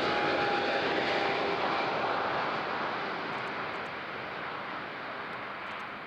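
Boeing 777-300ER's GE90-115B jet engines on final approach: a steady jet rush with a tone sliding slowly down in pitch, fading gradually as the airliner passes and moves away.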